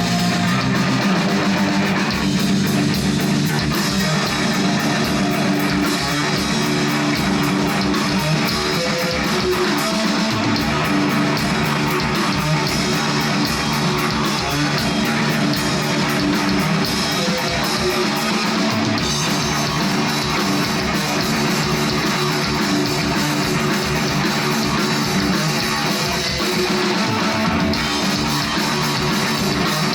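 Live stoner rock band playing: loud, distorted electric guitar over bass and drums, with a fast steady beat on the cymbals.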